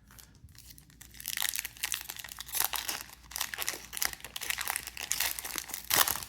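Trading card pack wrapper being torn open and crinkled by hand: a run of irregular crackles and tearing, the loudest burst near the end.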